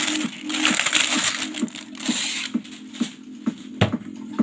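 Crackling, crinkling handling noise for about the first two and a half seconds, then a few scattered clicks. Under it runs a steady low hum with a regular beat.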